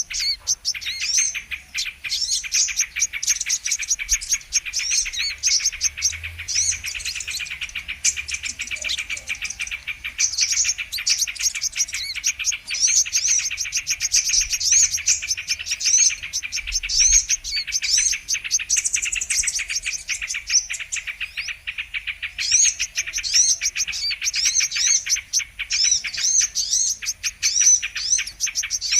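Brown-throated sunbird (kolibri kelapa) calling: a fast, continuous stream of high, thin chirps and twitters, thinning briefly twice.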